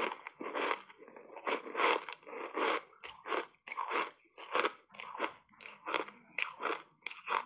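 Ice coated in matcha powder being chewed in the mouth: a quick run of crisp crunches, about three a second.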